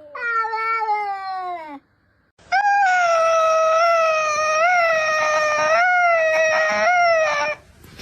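A domestic cat meows once with a falling pitch. After a short pause it gives a long, drawn-out yowl of about five seconds, held near one pitch with small wavers.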